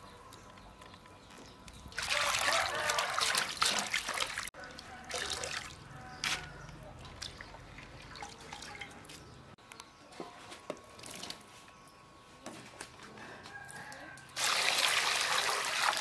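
Water poured into a metal basin in two loud stretches of about two seconds each, the first about two seconds in and the second near the end, with quieter dripping and small splashes between as washed bean sprouts drain. The second pour is water from a plastic scoop splashing over chicken blood curds in an aluminium basin.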